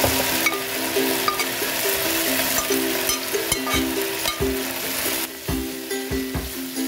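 Fern shoots sizzling as they are stir-fried in a hot non-stick wok, tossed with a spatula and a metal spoon, with short scrapes and taps of the utensils against the pan.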